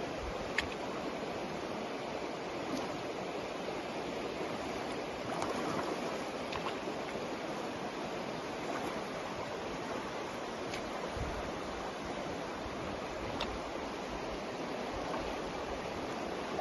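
River water running over a shallow stony bed, a steady rushing, with a few faint clicks.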